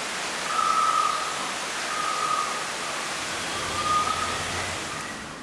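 Steady hiss of rushing water, with a bird whistling three short, level notes about a second and a half apart.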